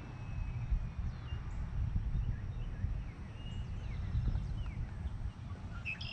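Wind buffeting the microphone, a gusty low rumble, with faint short bird chirps scattered through it.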